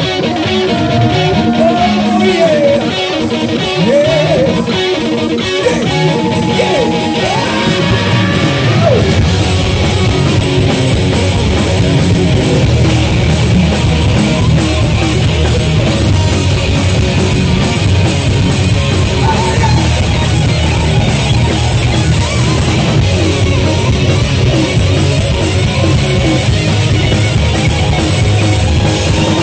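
Heavy metal band playing live: distorted electric guitars, bass and drum kit. A melodic line with bent notes rides on top for about the first nine seconds, after which the band plays denser and heavier.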